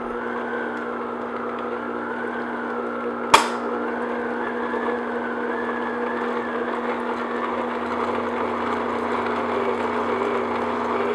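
Electric stand mixer running steadily, its beater turning in a glass bowl as it beats milk into a cake batter. There is a single sharp click about three seconds in.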